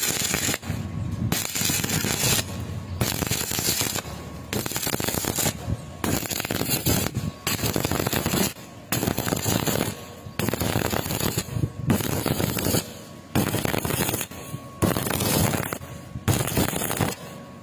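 Stick-welding (SMAW) arc crackling and sizzling in bursts of about a second, broken by short gaps throughout.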